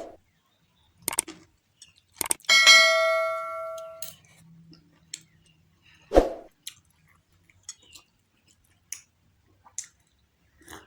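Eating sounds: a few sharp clinks of a utensil against a bowl. One, a little over two seconds in, rings out for about a second and a half. Quieter chewing clicks fall between.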